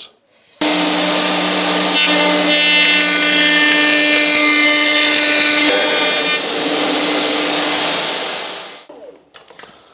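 Table-mounted router with a flush-trim bit running at full speed, trimming proud oak edging flush on an MDF board as it is fed along the fence; a higher whine rides over the motor through the middle of the cut. The motor winds down near the end.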